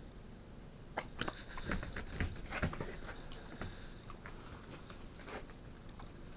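Welsh corgis taking treats: quick clicks of claws on a wooden floor mixed with mouths snapping up and chewing treats from a hand. A flurry of clicks starts about a second in and thins out after three seconds.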